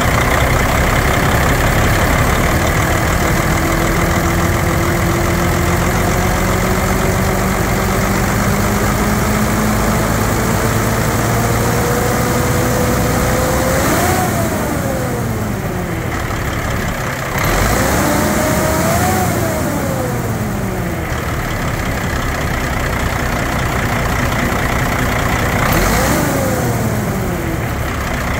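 Caterpillar diesel engine of a 1999 Sterling dump truck running, its pitch raised slowly for about ten seconds and then dropping back. It is then revved up and let fall back to idle twice more.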